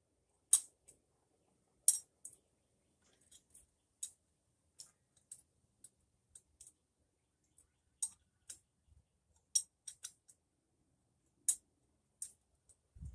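Sharp, irregular metal clicks from a hand tool working in the stud hole of a Harley Sportster's front cylinder head, where a 3/8-16 tap is run to clean sand out of the threads. The clicks are quiet and come one or two at a time, with a louder pair near the start.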